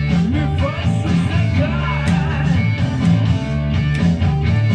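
Rock music with guitar playing over a steady low bass line.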